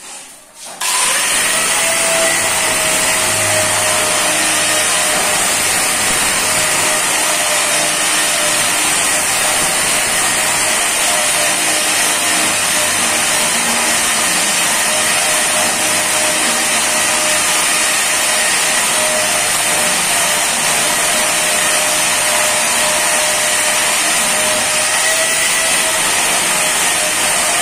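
Handheld electric angle grinder switching on about a second in and spinning up, then running steadily with a high whine as its disc works the edge of a granite slab.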